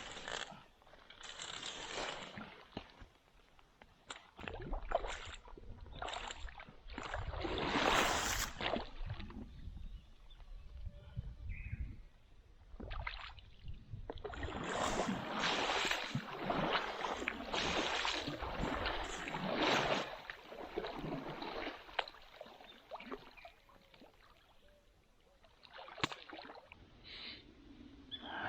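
Water sloshing and splashing in irregular surges, each a second or two long.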